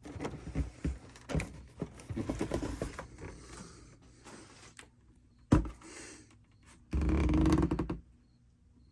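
Handling noises: irregular scraping and knocking, a single sharp knock about five and a half seconds in, then about a second of dense scraping near the end.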